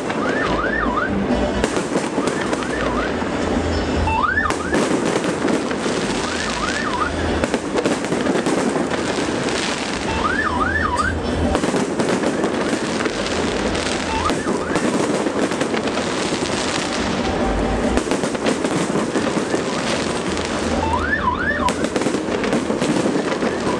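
Fireworks going off: dense, continuous crackling and popping. Short rising whistles come in quick pairs every few seconds.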